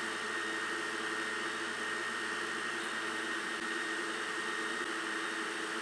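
Steady hum and hiss of a running fan or appliance, unchanging, with a thin high tone held through it; no distinct knife or cutting sounds stand out.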